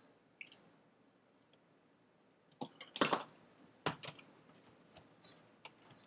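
Rubber feet being pressed into the plastic bottom case of an iBook G4, giving scattered short clicks. The loudest come as a cluster about three seconds in, with a sharp single click just before four seconds.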